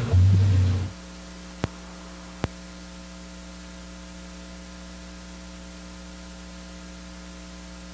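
A held low note of the guitar-accompanied song rings for about a second and stops. What is left is a steady electrical mains hum. Two short sharp clicks come a little under a second apart, near the start of the hum.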